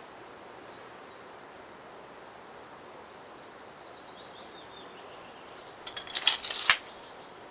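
Quiet outdoor background with a faint warbling bird call, then a brief rustle and clatter ending in a sharp knock near the end.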